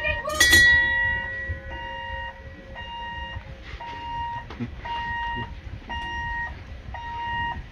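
The jetty train's warning beeper sounding about once a second, each beep about half a second long, as the small locomotive turns. About half a second in, a single bell strike rings out and fades over a few seconds.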